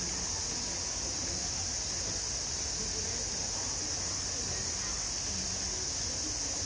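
Cicadas droning steadily: a high-pitched, unbroken summer insect chorus, with a low rumble of background noise beneath.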